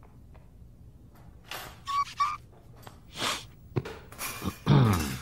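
A cartoon character's wordless voice sounds: a few short noises, two brief high squeaky notes about two seconds in, and a loud falling groan near the end.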